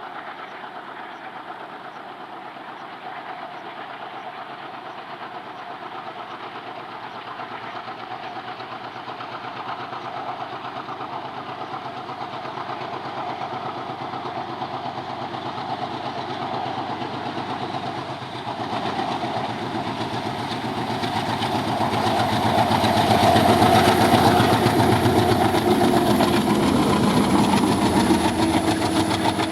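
Twin ALCO diesel locomotives, a WDM 3A and a WDM 3D, with their 16-cylinder ALCO 251 engines running. The engine sound grows steadily louder and swells sharply about two-thirds of the way in.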